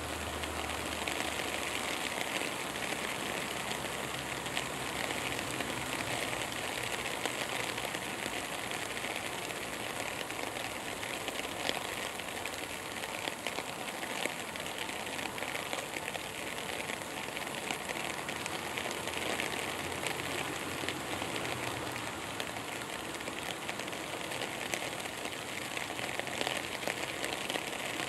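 Steady ambient outdoor noise: an even hiss with dense, fine crackling.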